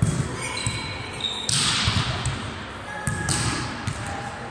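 Volleyballs being struck and bouncing on a sports-hall court: sharp slaps of ball contacts, three clear ones with a couple of fainter knocks between, the loudest about a second and a half in, each trailing off in the hall's echo.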